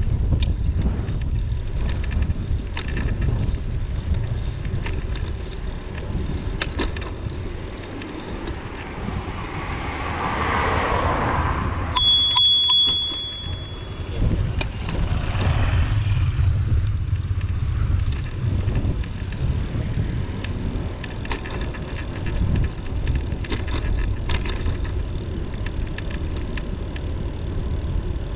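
Wind rumbling on the microphone of a moving bicycle, with a vehicle passing about ten seconds in and again a few seconds later. About halfway through, one high ringing tone sounds for about two seconds and fades.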